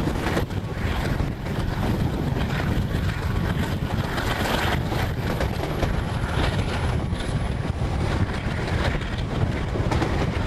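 Passenger train carriage running along the track, a steady rumble of wheels on rails, with wind buffeting the microphone held out of the open carriage window.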